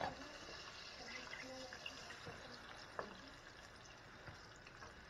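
Chicken strips frying in hot oil, a faint steady sizzle, with a couple of light clicks of metal tongs as pieces are lifted out, one at the start and one about three seconds in.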